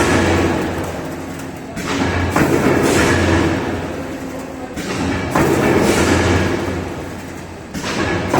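Servo-driven coil sheet-metal decoiling and feeding line working in repeated cycles. Three cycles, about every three seconds, each starting with a knock and a surge of metallic clattering and motor hum that fades over a couple of seconds.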